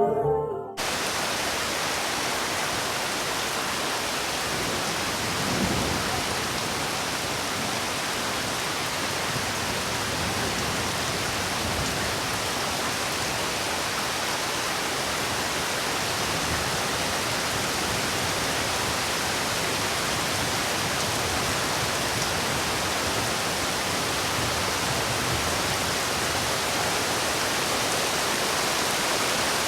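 Heavy rain falling steadily, an even, unbroken hiss. It starts abruptly about a second in as music cuts off, and there is a brief low swell about six seconds in.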